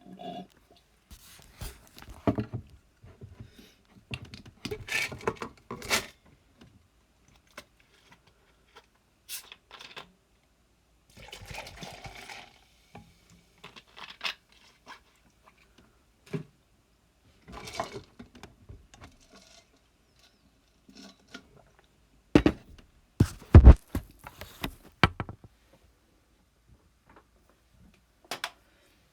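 Stylus tapping and scraping on an iPad screen, with irregular knocks from handling the tablet. A few brief rubbing noises come in the first half, and a cluster of louder knocks comes about two-thirds of the way in.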